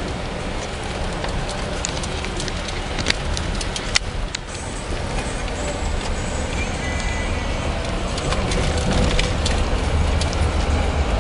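Steady low rumble and noise of a moving vehicle, with a few sharp clicks about three and four seconds in, growing slowly louder toward the end.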